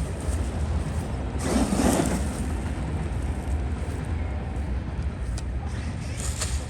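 Traxxas Maxx RC monster truck driving over grass, its electric motor and tyres briefly louder about one and a half seconds in, over a steady low rumble.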